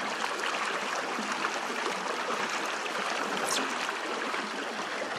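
Steady churning and splashing of water from a pedal-driven pontoon paddle boat under way, its paddle wheel turning. A brief high chirp comes about three and a half seconds in.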